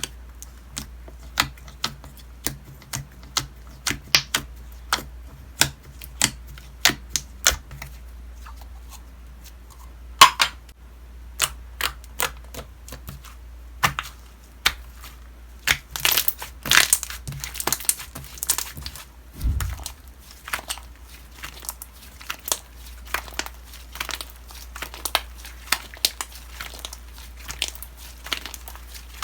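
Homemade slime being squeezed and poked by hand, giving an irregular run of sharp clicks and crackling pops that come thicker in the second half, with a single low thump about two-thirds of the way through.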